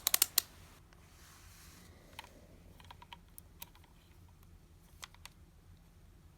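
Multimeter and test probes being handled to measure resistors: a quick run of sharp clicks at the start, as of a rotary range switch being turned, then a few faint scattered clicks and taps as the probes go onto the resistor leads.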